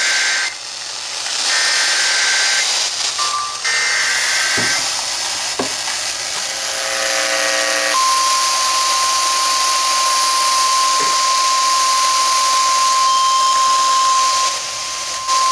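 Emergency Alert System SAME header from NOAA Weather Radio: three short buzzing data bursts in the first five seconds. After a few seconds the single steady 1050 Hz warning alarm tone starts and holds, all heard over radio hiss.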